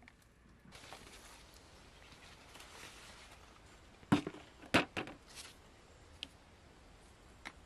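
Footsteps and rustling of corn leaves as a person pushes through a cornfield, with two sharp knocks a little past halfway and a few fainter clicks after.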